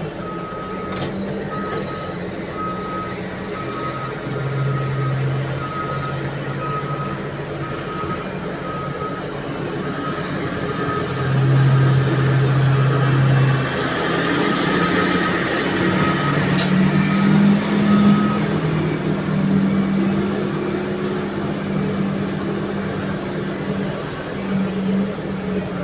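Heavy diesel engines of mining machinery running, with a back-up alarm beeping steadily a little more than once a second. The beeping stops about two-thirds of the way through, and the engine note rises at about the same time.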